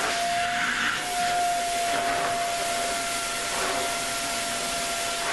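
Vacuum cleaner running steadily with a high motor whine, the rush of air swelling every second or so as the nozzle works over the recliner's upholstery.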